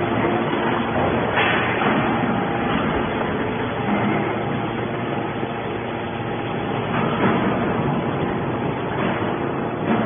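TCM hydraulic metal scrap baler running with a steady dense machine noise, with a few brief knocks as its ram pushes a compressed bale of metal turnings out of the chamber.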